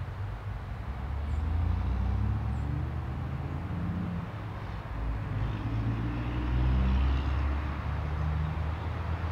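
Low rumble of distant passing motor traffic, with engine tones swelling and fading, loudest about two seconds in and again about seven seconds in.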